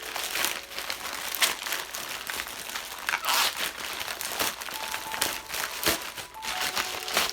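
Packaging crinkling and rustling in hands, in irregular bursts, as a doll's box and wrapping are opened.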